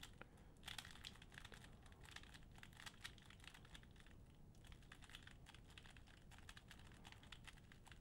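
Faint, rapid clicking of a 3x3 speedcube's plastic layers being turned in quick runs of moves.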